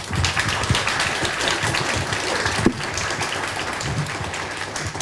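Audience applauding, a dense steady clapping that eases slightly toward the end.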